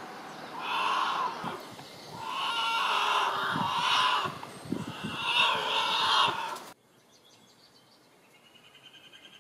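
Bear cubs up a tree crying: a series of loud, high-pitched bawling cries, each about a second long, that cut off suddenly about two-thirds of the way through.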